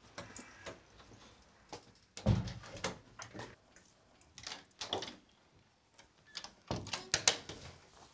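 A front door being opened and shut, with a heavy thump about two seconds in, followed by scattered knocks and clatters of someone moving about, with another cluster near the end.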